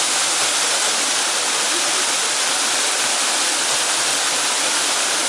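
Waterfall pouring steadily into a canyon pool: a constant, hissing rush of falling water.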